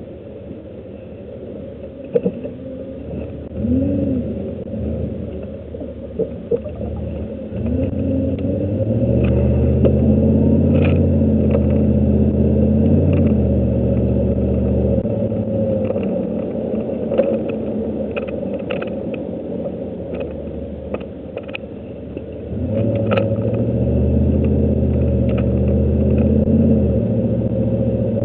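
Pickup truck engine heard from inside the cab while being driven: a few short revs, then two longer stretches of accelerating with a loud, steady engine drone. Scattered sharp clicks and rattles sound over it.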